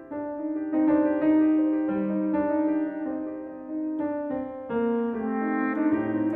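Bass clarinet and piano playing classical chamber music: a long held bass clarinet note over piano chords struck several times.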